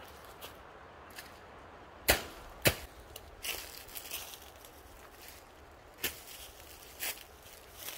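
Four sharp knocks or bangs: two close together about two seconds in, then two more about a second apart near the end, with light clicks and rustling between.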